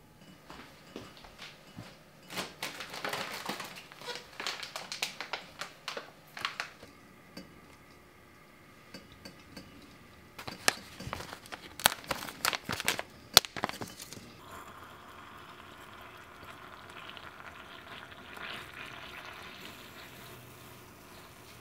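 A foil tea pouch rustles and crinkles in the hands, with sharp clicks and crackles as it is handled and opened. About halfway through this gives way to a steady pour of water onto a tea bag in a glass cup.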